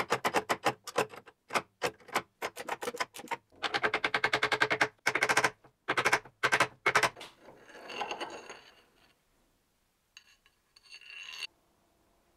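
Rapid metallic clicking and tapping from hand tools at work on a lathe headstock, several clicks a second in runs, with a denser rattling stretch about four seconds in. Fainter scraping follows in the second half.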